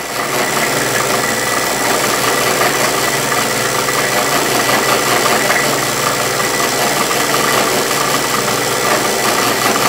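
Benchtop milling machine running with an end mill cutting a slot into a metal block: a steady, loud motor and spindle sound mixed with the noise of the cut, starting abruptly at the outset and holding even throughout.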